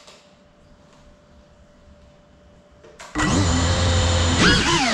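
FPV quadcopter's brushless motors spinning up from rest about three seconds in. A loud whine follows whose pitch rises and falls with the throttle as the drone lifts off.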